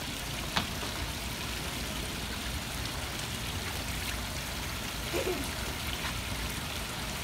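Fountain water pouring from spouts into a concrete basin, a steady splashing wash. A single sharp tap about half a second in.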